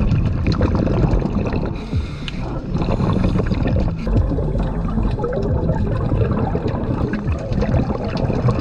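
Underwater sound picked up through a camera housing: a steady muffled rumble with bubbling and many small scattered clicks and crackles.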